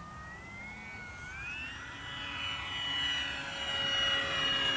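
Electric motor and propeller of an FMS 1700mm PA-18 Super Cub RC plane whining in flight. The pitch rises about a second and a half in, and the sound grows steadily louder toward the end.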